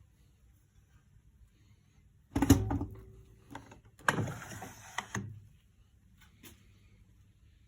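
Miele front-loading washing machine being handled: a heavy thunk about two and a half seconds in, then about a second of sliding noise with clicks, over a low steady hum.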